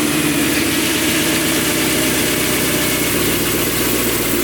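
BMW S65 4.0-litre V8 of an E93 M3 idling steadily just after start-up.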